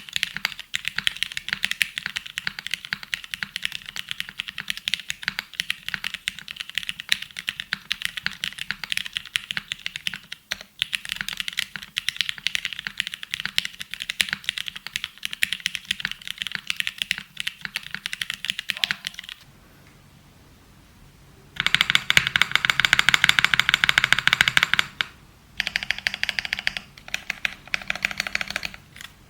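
Rapid, dense clicking in long runs. It stops for about two seconds about two-thirds of the way through, then comes back in its loudest run, then in shorter runs broken by brief gaps.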